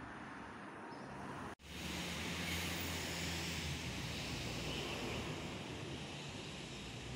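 Steady drone of an engine, heard with outdoor background noise. The sound drops out for an instant about a second and a half in, then returns louder, the low engine hum at its strongest.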